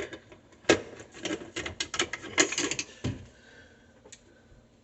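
Irregular small clicks and taps of hands working the wiring and small parts of a garbage disposal hookup, bunched together in the first three seconds and then dying away to faint background noise.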